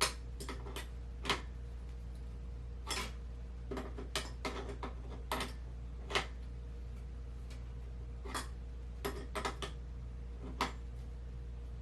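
Hand tools working on bicycle parts: irregular sharp metallic clicks and clinks at uneven spacing, over a steady low hum.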